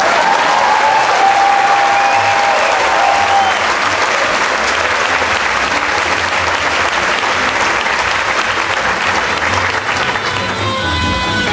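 Audience applauding, with guitar music playing under it; the music comes through more clearly near the end as the applause thins.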